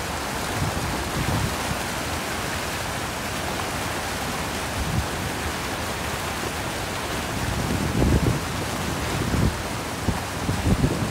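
Flood-swollen mountain river rushing past, a steady churning-water noise mixed with rain. A few low bumps near the end.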